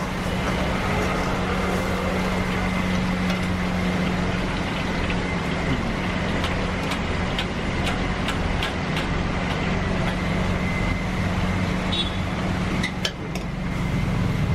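Busy roadside din: a steady low motor hum over traffic noise, with scattered sharp clicks and knocks.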